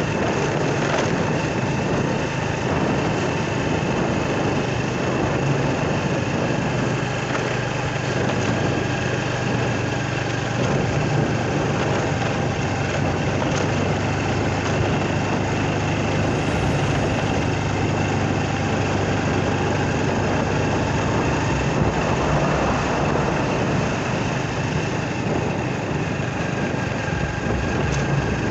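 Motorcycle engine running at a steady speed while riding, with wind and road noise.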